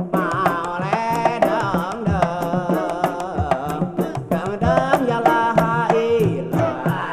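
Traditional Sundanese terbang music: a sung melodic line with wavering, ornamented pitch over a steady beat of terbang frame drums.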